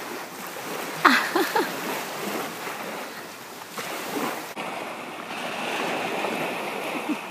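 Small waves washing onto a sandy beach, a steady surf hiss, with a few short louder sounds about a second in.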